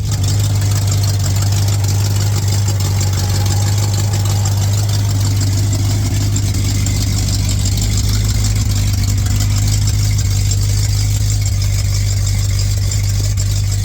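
Ford 302 (5.0 L) V8 of a 1989 F150 idling steadily, running again after the distributor was reset by three teeth. It is warming up toward operating temperature, with the ignition timing not yet set with a light.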